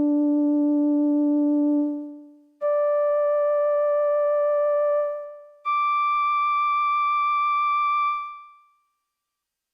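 Three sustained synthesizer notes, each an octave higher than the one before, each held at an even level for about two seconds and then fading away. The last note dies out about a second before the end.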